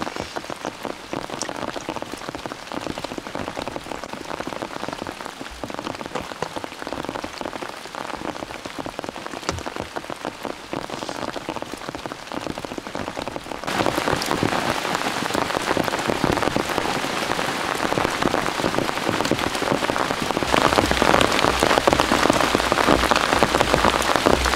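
Heavy rain pattering on a tent, a dense crackle of countless drops. A little past halfway it turns suddenly louder and fuller.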